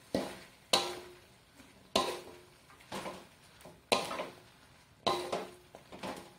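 Wooden spatula stirring mustard greens in an aluminium wok: a clack against the pan about once a second, several with a short metallic ring.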